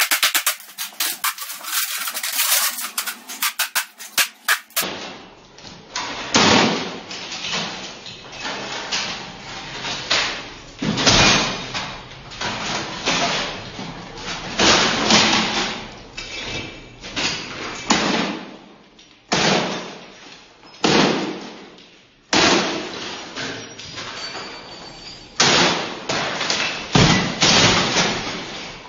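A series of heavy crashes as glass, crockery and other objects are smashed with blows, each followed by shattering and debris falling, coming every one to three seconds. The first few seconds are a dense run of rapid clattering.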